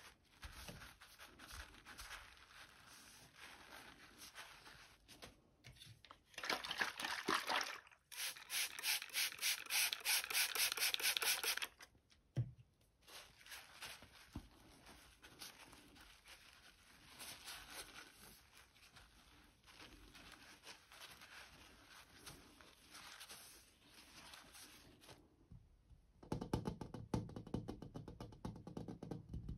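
Fingertips tapping and scratching on the glass of a mirror in soft, rapid strokes, with a louder run of quick, even strokes a few seconds in and a single low thud near the middle. Near the end, fuller rubbing and tapping of hands on the water-beaded glass.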